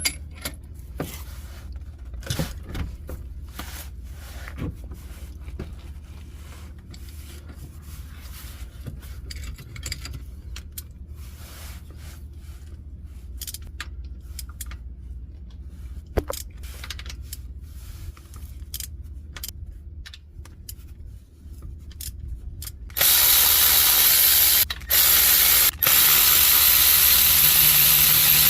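Tools working on the bolts of a GR Corolla's lower engine pitch mount. Scattered clicks of hand tools come first. About 23 seconds in, a power tool starts and runs loudly, stopping briefly twice.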